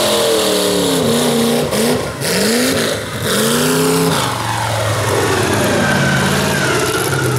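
Mud bog buggy's engine revving hard through a mud pit, its pitch swinging up and down several times with brief lifts of the throttle. About four seconds in it settles into a steady, lower-pitched run.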